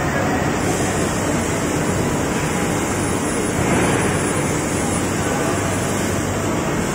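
Steady, even rushing noise of a plywood production line's machinery, with a faint low hum underneath and a slight swell about halfway through.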